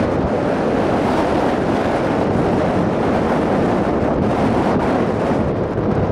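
Wind blowing across the microphone: a steady, loud, deep rush with no distinct events.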